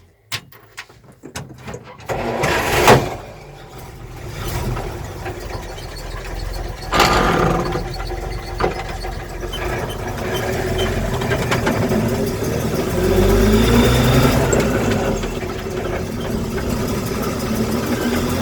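ZIS-150 truck's straight-six petrol engine being started. After a short burst of cranking, it catches with a sudden loud onset about seven seconds in, then runs, revving up and down, and settles into idle.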